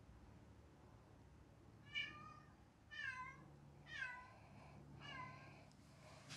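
A domestic cat meowing four times, about a second apart, each call dipping in pitch at its end. These are the cries of a cat left alone, which the owners worry may be a sign of separation anxiety.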